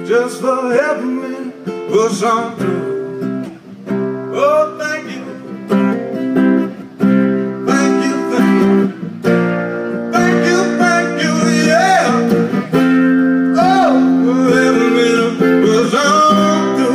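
Acoustic guitar strummed and picked, with a man singing over it through a microphone and PA.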